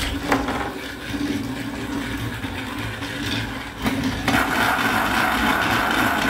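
Battery-powered toy train's small electric motor whirring as the engine runs along plastic track. About four seconds in, a steady higher tone joins it.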